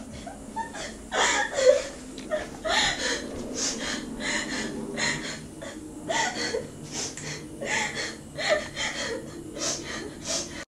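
A woman sobbing: repeated sharp, gasping breaths with short whimpering cries between them, coming every half second to a second.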